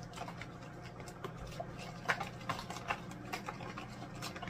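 Metal spoon gently stirring a melted-butter sauce in a plastic bowl: irregular light clicks and scrapes of the spoon against the bowl, more frequent in the second half, over a steady low hum.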